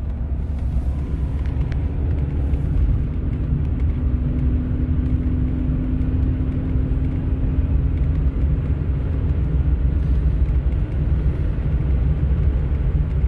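1989 Mercedes 300SE being driven at about 55 mph, heard from inside the cabin: a steady low road and engine rumble. A steady engine hum sits over it and fades about two-thirds of the way through.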